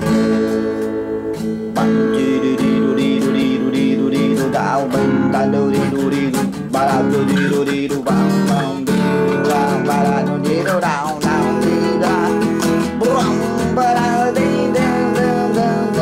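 Nylon-string classical guitar strumming chords: an instrumental song intro, starting abruptly at full level.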